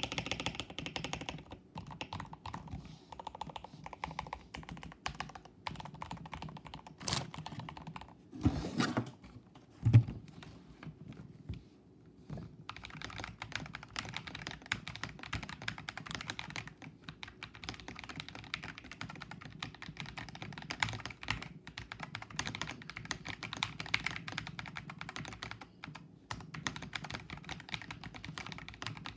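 Fast typing on a mechanical keyboard with Gateron Oil King switches and holee, PE foam and tape mods. About 10 s in there is a heavy thump and a brief pause, then typing resumes on a second modded board with lubed Akko CS Lavender switches.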